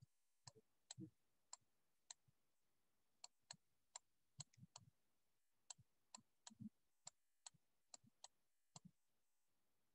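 Faint, irregular clicks of a stylus tapping and writing on a tablet, two or three a second.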